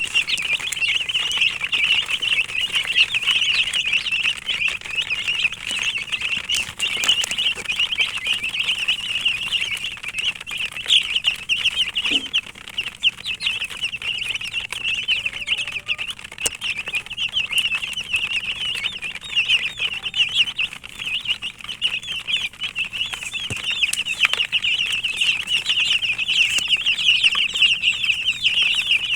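Many domestic chicken chicks peeping continuously, a dense chorus of short high chirps with no pause.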